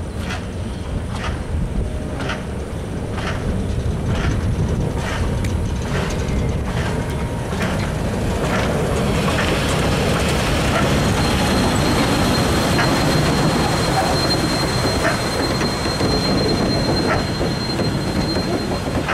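Class 50 steam locomotive and its coaches rolling past at low speed, growing louder as it nears, with regular beats in the first half. Once the coaches are passing, a thin steady squeal rises over the rumble of wheels on rail.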